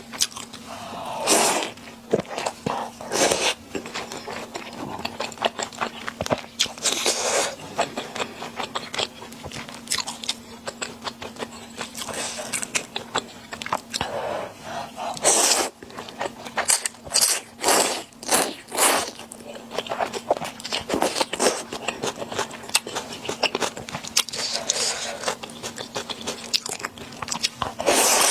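A person eating a bowl of luosifen (river-snail rice noodle soup) close to the microphone: irregular crunching, biting and chewing, with utensil scrapes against the bowl. A faint steady hum runs underneath.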